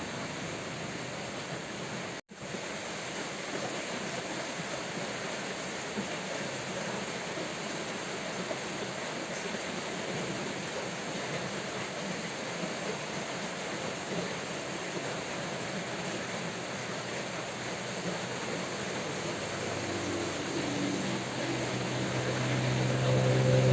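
Steady rain hiss, dropping out for an instant about two seconds in. Near the end a motor vehicle's engine hum rises underneath and grows louder.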